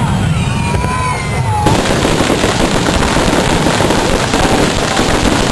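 Fireworks display: whistling shells gliding in pitch, then about two seconds in a dense, continuous crackle of rapid pops takes over.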